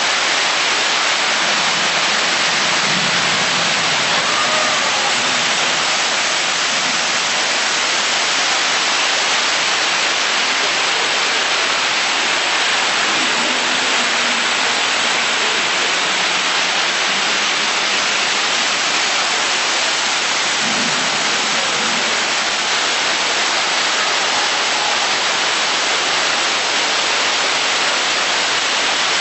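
Water from a simulated flash-flood display pouring down an artificial rock cliff and splashing into the pool below: a steady, unbroken rushing hiss.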